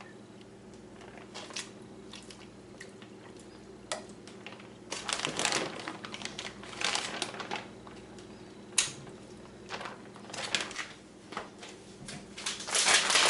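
Plastic packaging crinkling and rustling as it is handled, in irregular bursts that get louder near the end.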